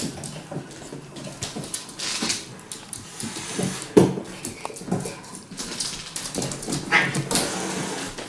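A raccoon and a cat squabbling over a hanging fabric chair: short whimpering cries and growls, mixed with fabric rustling and scrabbling.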